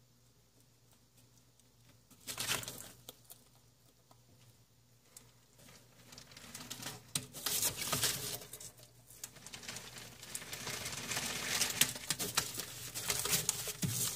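Newspaper crinkling and pattering under a bearded dragon's claws as it scrambles across the sheets. A short burst comes about two seconds in, then the rustling builds into a near-continuous run of small taps and scratches.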